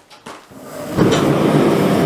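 Gas forge burner lighting: a rising hiss about half a second in, then the burner catches suddenly about a second in and runs with a loud, steady rush.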